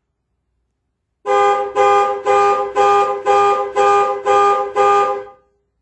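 Dodge Challenger's two-note car horn honking eight times in a steady, even rhythm, about two honks a second, starting about a second in.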